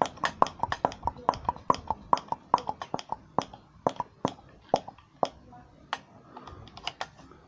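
Hand vacuum pump being worked: a quick run of clicking strokes about five a second that slow and thin out after about three seconds. It is drawing vacuum on the variable-vane turbo's actuator to test its full travel.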